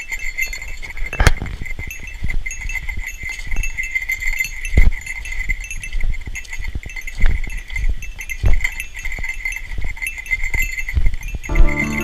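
A small bell jingling in a steady, even rhythm, with occasional low thuds of footsteps and handling as someone walks. Music comes in near the end.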